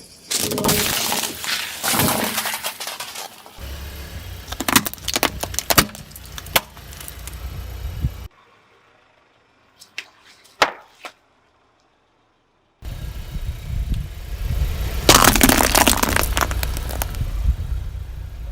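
A car tyre crushing brittle objects in several separate takes: loud bursts of crunching and cracking, with the car's engine humming low beneath some of them. In the middle there is a near-silent gap broken by a few sharp clicks.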